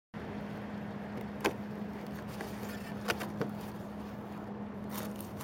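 Cardboard donut box being handled and its lid opened, giving a few sharp clicks and taps. A steady low hum runs underneath throughout.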